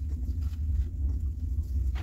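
Wind buffeting the microphone in a steady low rumble, with a few faint knocks of stones being handled.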